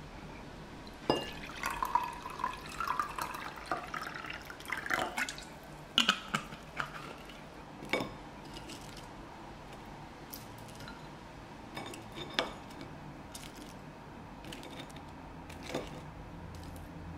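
Water poured from a glass jug into a glass tumbler, the pitch of the filling rising over about four seconds as the glass fills. A few sharp clinks follow.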